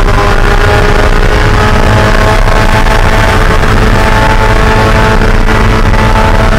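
Spec Miata race car's four-cylinder engine heard from inside the cockpit, running loud at sustained high revs with its pitch holding fairly steady, over heavy road and drivetrain rumble.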